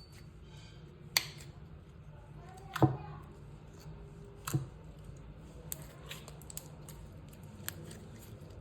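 Slime being poked and squeezed, giving a run of sharp, wet-sounding pops and clicks at irregular intervals, the loudest about three seconds in.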